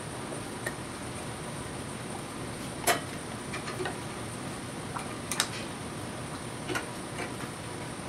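Irregular light metallic clicks and taps, about ten of them, as the TIG torch, filler rod and gloved hands touch the sheet-metal workpiece and steel fixture table, over a steady background hiss; the loudest tap comes about three seconds in.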